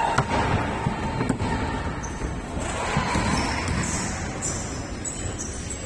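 A basketball bouncing on a court during a game, with a few irregular thuds.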